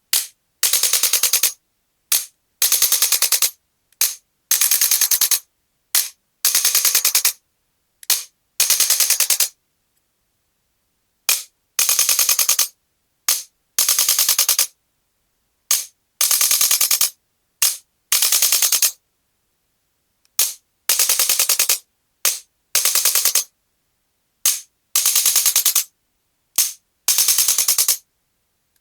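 Chiropractic adjuster gun firing rapid trains of taps, each burst about a second long and led by a single short click, repeating every two seconds or so with a longer pause about ten seconds in.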